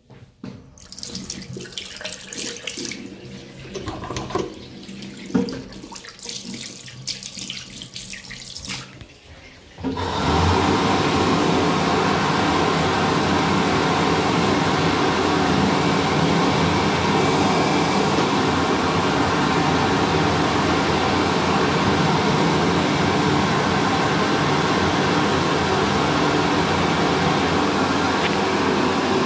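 Water from a tap splashing over hands in a sink, uneven and broken. About ten seconds in, an Airdri Quarto push-button hand dryer starts abruptly and runs with a steady, loud blowing noise.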